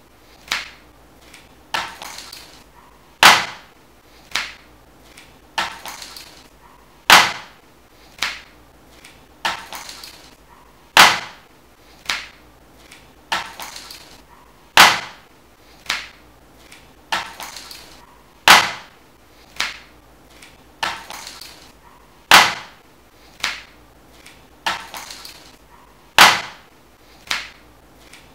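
Sharp knocks in a steady repeating rhythm, about one every second and a quarter, every third one loudest, some followed by a short crackling rattle.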